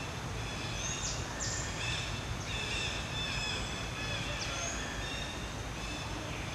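Outdoor ambience of several birds chirping and calling, with a few quick falling calls among them, over a steady low background rumble.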